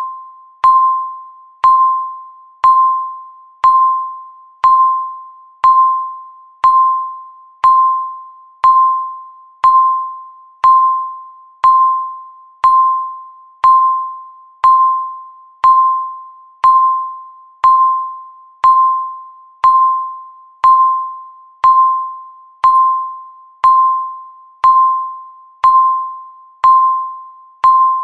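Countdown timer beeping once a second, each beep a single pitched tone that starts sharply and dies away before the next.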